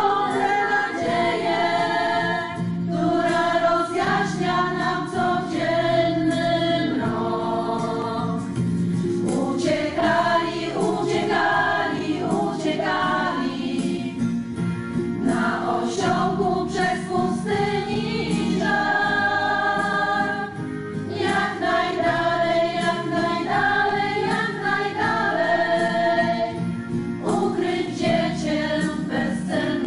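A choir of mostly women's voices singing a song together, the front singers amplified through handheld microphones, continuous at a steady level.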